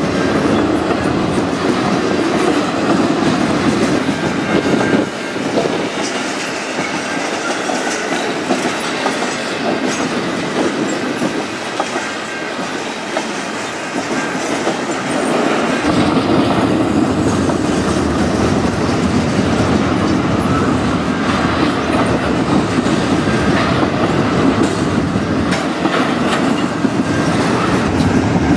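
Double-stack intermodal freight train passing close by: steel wheels clacking over the rails and the well cars rattling steadily. The sound shifts about five seconds in and again near sixteen seconds.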